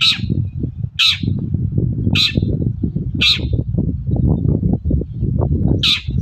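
Long-tailed shrike (cendet) giving short, harsh calls about once a second, five in all with a pause before the last, over a steady low rumble.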